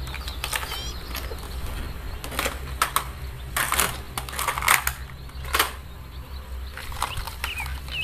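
Plastic toy cars clattering and knocking against each other and a plastic basket as they are handled and put in, in a series of irregular knocks.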